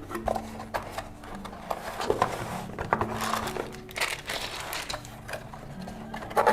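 Keyboard box and packaging being handled and opened: irregular rustling, crinkling and light knocks, over quiet background music.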